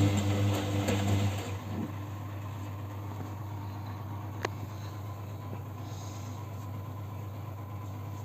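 Siemens washing machine in its final rinse: the drum motor turns the drum for about a second and a half, then stops. A steady low hum remains, with a single click about four and a half seconds in.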